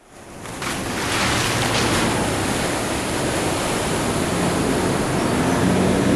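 Loud rushing and splashing of water thrown up by an armoured vehicle ploughing through water, swelling in over the first second. Music begins to come in faintly near the end.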